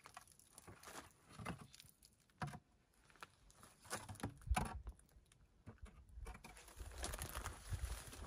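Faint, irregular crunches and clicks of footsteps on loose, stony ground, with low rumbles about halfway through and again near the end.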